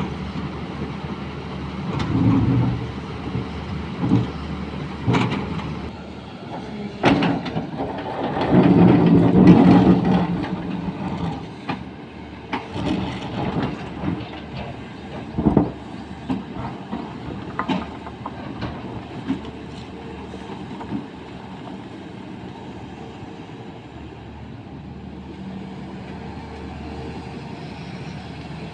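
Sany excavator's diesel engine running, rising under load twice, with several sharp clanks and knocks scattered through the first two-thirds, then settling to a steadier, quieter run.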